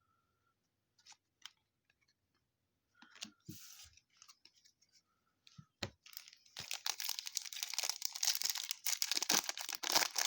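A trading-card pack wrapper being torn open and crinkled: a dense, continuous crackling that starts about six and a half seconds in. Before it there are only a few light taps and rustles.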